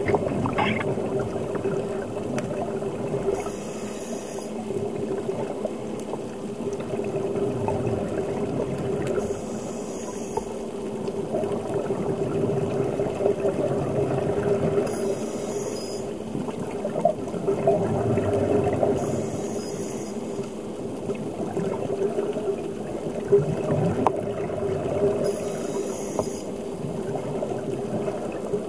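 Underwater sound of a scuba diver breathing: a hiss from the regulator with bubbles comes about every five to six seconds, over a steady low hum and a constant watery wash.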